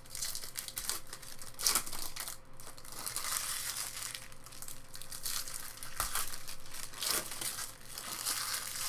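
Foil trading-card pack wrappers crinkling as 2018 Topps Chrome baseball packs are torn open and handled, with a few sharper crackles.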